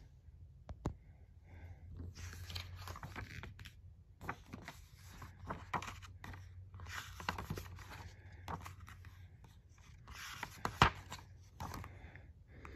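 Pages of a hardcover picture book being turned by hand: paper rustling and scraping, with a few sharp taps as the pages and hand land on the book, the loudest near the end.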